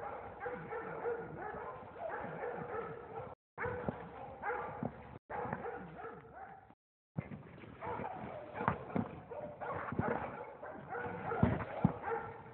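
Several cur dogs baying, their long barking calls overlapping without pause.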